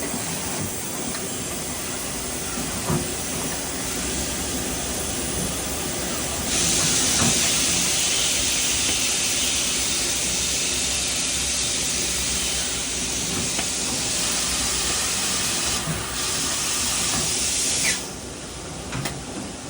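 DMG Mori AA-1 CNC lathe running with its high-pressure coolant spraying as a steady hiss. The hiss gets much louder about six seconds in and cuts off suddenly near the end, with a few light clicks from the machine.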